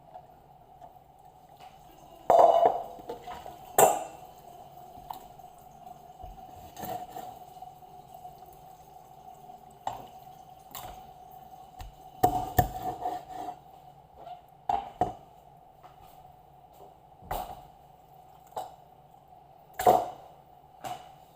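Kitchen prep sounds: dishes and utensils knocking and clattering now and then, with some dripping water, over a steady hum. The loudest clatters come a couple of seconds in, around the middle, and near the end.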